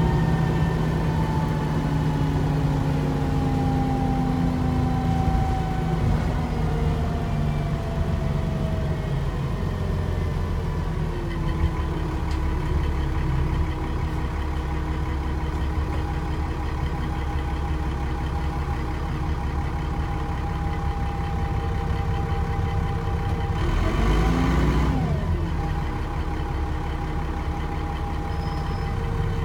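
Onboard sound of a Dennis Trident 2 double-decker bus: the diesel engine and driveline running with a steady low rumble. A whine falls in pitch over the first ten seconds, the sound runs steadily through the middle, and there is a brief rise and fall in pitch with a rush of noise about 24 seconds in.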